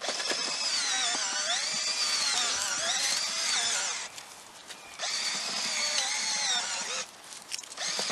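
Black & Decker cordless drill turning a bulb-planter auger into rocky soil: a long run of motor whine whose pitch sags and recovers under load, a short pause, a second run, then a few brief bursts near the end. It is struggling in the rocky ground.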